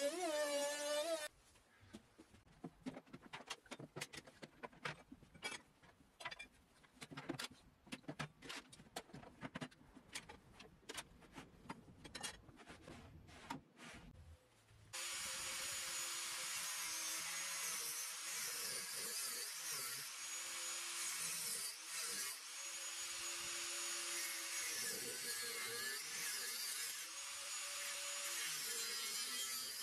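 Scattered light knocks and clicks of workpieces being handled and set on a table saw's sliding table. About halfway through, a handheld angle grinder with a cut-off disc starts cutting an aluminium track clamped in a bench vise: a loud, steady hiss with a whine whose pitch drops and recovers as the disc bites.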